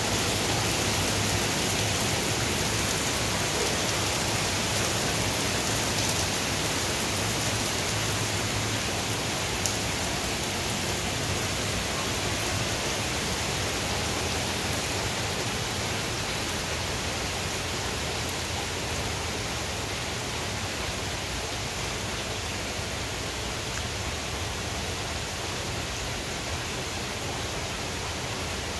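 Steady rain from a tropical storm pouring down on lawn and trees: an even, dense hiss that eases slightly toward the end.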